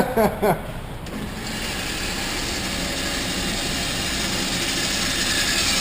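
Shooting range's motorized target carrier running, bringing the paper target back along its track for the shots to be checked. A steady whir starts about a second in and grows slowly louder.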